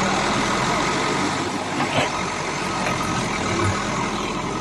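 The diesel engine of a Caterpillar 424B backhoe loader running steadily, with a short knock about two seconds in.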